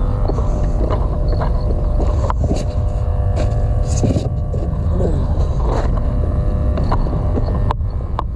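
A motor droning steadily over a low rumble, with scattered short clicks.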